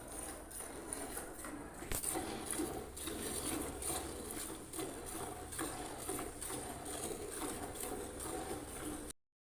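Hand-milking a cow: jets of milk squirting into a pail in a steady rhythm of about two to three squirts a second. The sound cuts off abruptly near the end.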